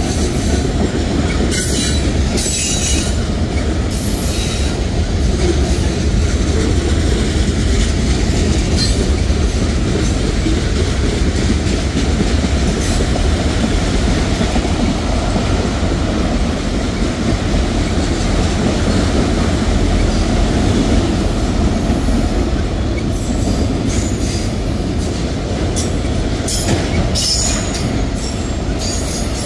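Freight cars of a Norfolk Southern mixed train, tank cars and then autoracks, rolling past close by: a steady, loud rumble of steel wheels on rail, with a few sharp metallic clatters near the start and again near the end.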